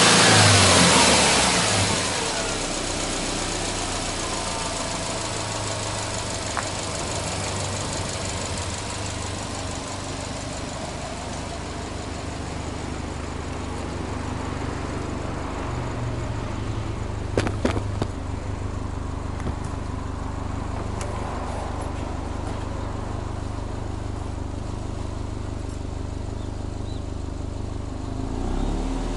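Subaru Impreza WRX STI's turbocharged flat-four boxer engine dropping back from a rev in the first two seconds, then idling steadily. A few sharp clicks sound about two-thirds of the way through.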